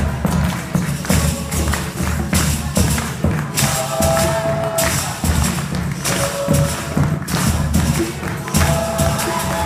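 Live Brazilian folk music: a drum beating a steady rhythm with tambourine-like jingles and hand claps, and a long held note sounding twice over it.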